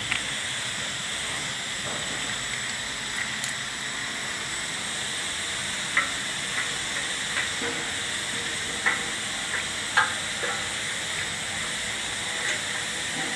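A tractor wiring harness and its plastic plug connectors being handled, giving several short clicks between about six and ten seconds in, over a steady background hiss.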